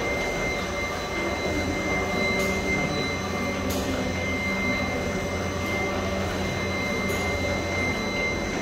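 Label printing and die-cutting machine line running: a steady mechanical hum with a constant high whine over it and a few light clicks.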